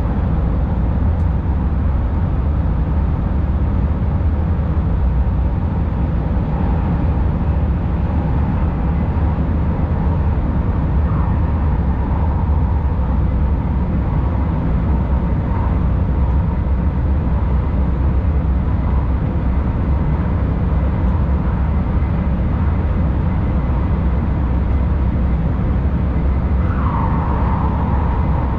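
Tilting InterCity train running through a tunnel, heard from the driver's cab: a steady, deep rumble of wheels and air enclosed by the tunnel walls. A faint whining tone comes and goes, and near the end it glides down and then holds.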